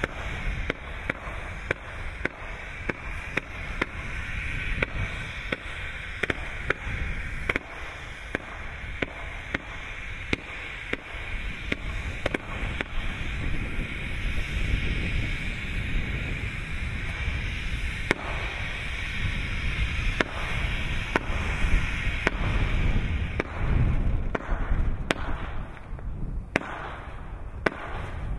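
Tango automatic firework (a multi-shot cake) firing: a steady spraying hiss with sharp pops going off once or twice a second as its shots launch. The hiss dies away near the end, leaving the separate pops.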